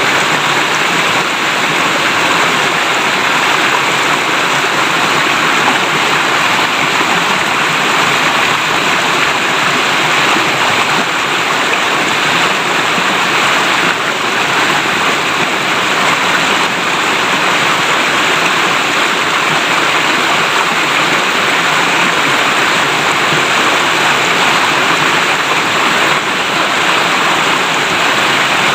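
Clear river water flowing and babbling over stones in a steady, unbroken rush.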